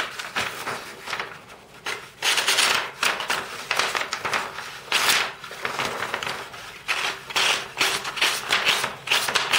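Leatherman Juice CS4 knife blade slicing through a sheet of paper, a series of irregular scratchy cutting strokes, some cleaner and some rougher. It is a sharpness check of an edge partly dulled by cutting felt.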